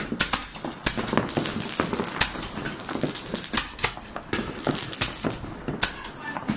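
New Year's fireworks going off: a rapid, irregular series of sharp bangs and crackles from bursting shells and firecrackers.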